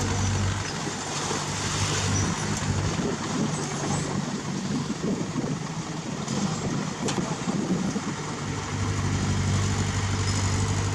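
Heavy diesel engine of construction machinery running steadily with a low hum. The hum weakens in the middle and strengthens again near the end, and there is one sharp click about seven seconds in.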